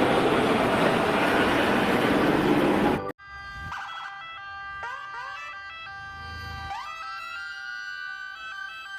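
Water spraying hard for about three seconds, then it cuts off abruptly and an electronic siren-like sound takes over: several held tones with upward swoops in pitch.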